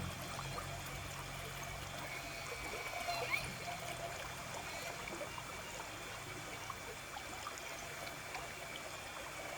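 Water trickling steadily, like a small stream.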